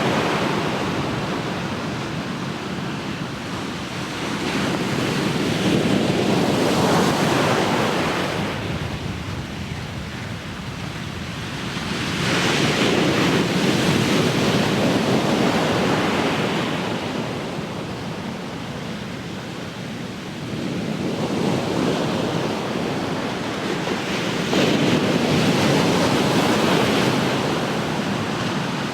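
Ocean surf, the wash of the waves swelling and fading about every five to six seconds.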